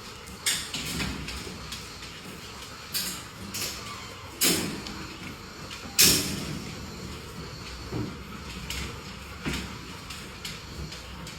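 Door rattling and knocking in scattered sudden strokes, with the two loudest bangs about four and a half and six seconds in.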